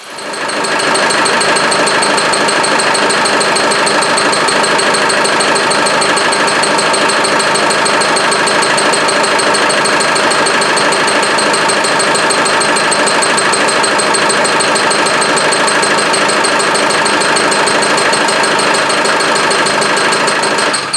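Land Rover 300Tdi four-cylinder turbodiesel running steadily at idle, loud, with a constant rhythmic chirping. The cause is unknown: injectors, timing belt, exhaust and engine mounts have been ruled out, and the chirp appears only once the engine is warm.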